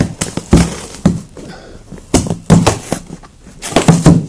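Corrugated cardboard box being wrenched and torn open by hand, its flaps held down by heavy-duty staples: a series of loud rips and knocks, about five bursts.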